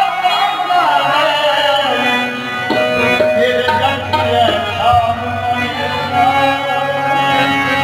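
Harmonium playing a Punjabi Sufi devotional melody over steady tabla drumming, in qawwali style.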